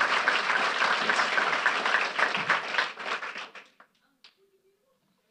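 Audience applauding, thinning out and dying away about three and a half seconds in.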